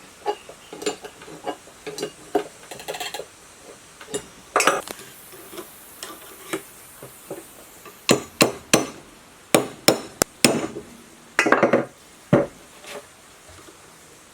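Metal parts of an electric water pump being fitted and tapped together during reassembly: scattered clinks and knocks, with a run of loud sharp strikes from about eight seconds in.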